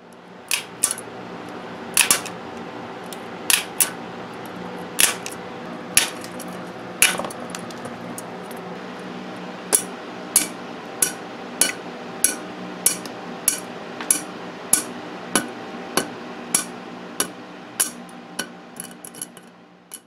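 Tin snips cutting through a plastic egg-crate lighting panel, each cut through a rib giving a sharp snap. A few scattered snaps come first, then a steady run of about one every half second, with several quicker, fainter ones near the end, all over a steady hum.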